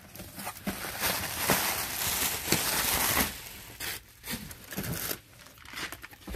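Plastic wrapping crinkling and cardboard rustling as a shipping box is opened and its packaged contents are handled. The crinkling is loudest for about two seconds near the middle, followed by lighter, scattered rustles and knocks.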